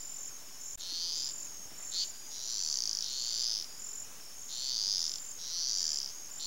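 Chorus of small calling animals: a steady high-pitched chirping with five louder, high buzzing calls of about half a second to a second each, two of them back to back near the middle.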